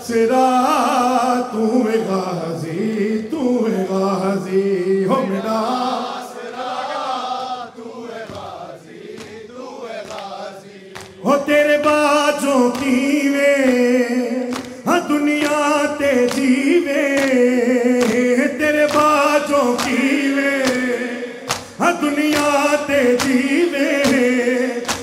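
A noha, a Shia lament chanted without instruments: a man leads through a microphone and a chorus of men sings with him, coming in fuller and louder about eleven seconds in. Sharp slaps keep a steady beat under the chant, the mourners beating their chests (matam).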